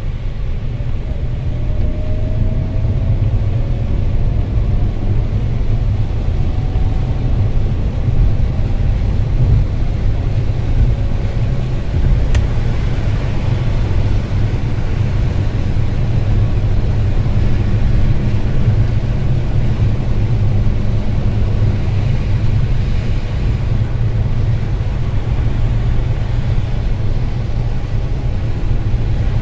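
Car driving on a rain-soaked highway, heard from inside the cabin: a steady low rumble of engine and tyres with the hiss of wet road and spray. A faint rising tone comes in the first few seconds, and a single sharp click about twelve seconds in.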